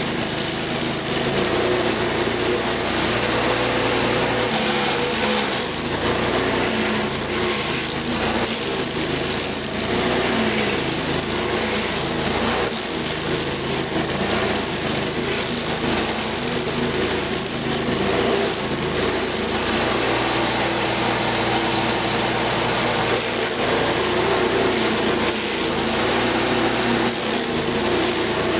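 LASKI F500H stump grinder running under load, its cutter wheel grinding into an ash stump and throwing wood chips. It makes a steady, even engine drone mixed with the noise of the cutting teeth chewing wood.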